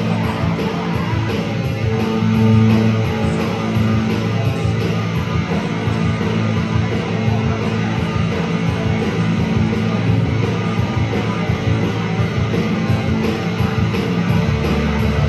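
Live rock band playing loud, with an electric guitar through amplifiers driving the sound.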